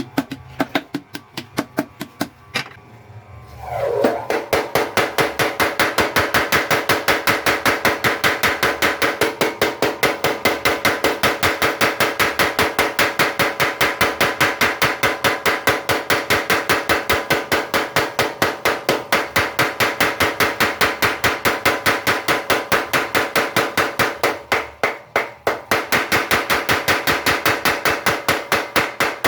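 A blacksmith's mechanical power hammer running. A few scattered blows come first; about four seconds in, it picks up speed into rapid, steady hammering. The hammering dips briefly near the end, then picks back up.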